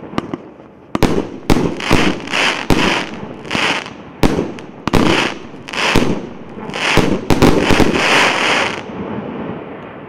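Multi-shot consumer firework cake (1.25-inch, 49-shot) firing its last shots: a quick series of sharp bangs, each trailed by a short hiss. They crowd together into a dense cluster between about seven and nine seconds in, then stop, and the rumble fades away.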